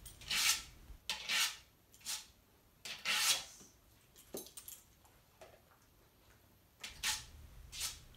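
A dog's front-paw nails scraping strokes down a sandpaper nail board: about seven short rasps, with a pause of a couple of seconds in the middle.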